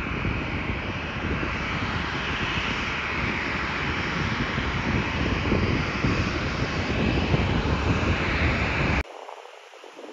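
Southwest Boeing 737-700's CFM56-7B jet engines, a loud steady roar and rumble as the airliner touches down and rolls out on the runway. It cuts off suddenly about nine seconds in, leaving a faint hiss.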